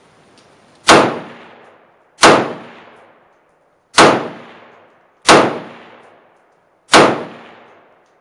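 Five single semi-automatic shots from a Smith & Wesson M&P15T AR-15 in .223 fitted with a flash enhancer muzzle device, spaced about one and a half seconds apart. Each shot is followed by a reverberating tail that dies away over about a second.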